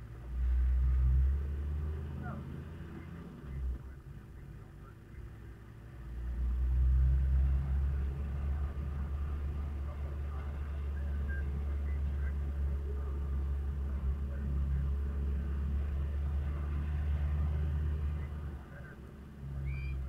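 Toyota Land Cruiser HZJ78 troopy's 1HZ straight-six diesel driving on a rough dirt track, heard from inside the cab as a deep rumble of engine and tyres. It eases off for a few seconds early on, then grows louder about six seconds in and holds steady until just before the end.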